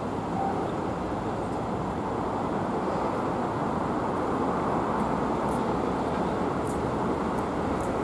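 Steady road traffic noise: engines running and vehicles moving on a city street, with a few faint short high ticks in the second half.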